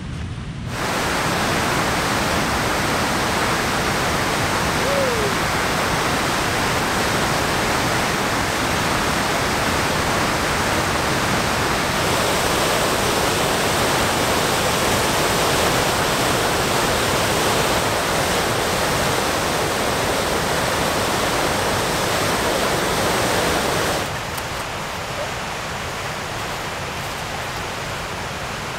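Steady roar of a river waterfall running high with spring water, churning over rocks. About 24 seconds in, the roar cuts off abruptly and gives way to a quieter steady hiss.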